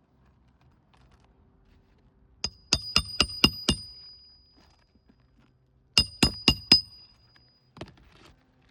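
Hammer driving roofing nails into a replacement asphalt shingle: six quick strikes, then after a pause four more, about four a second, each with a high metallic ring, and one softer knock near the end.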